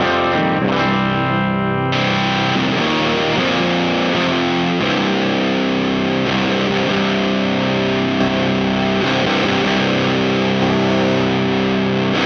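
Electric guitar in C standard tuning played through a Rat-style distortion pedal, the Space Sounds Spacecraft: heavily distorted chords ringing out and sustaining. The tone turns brighter and harsher about two seconds in.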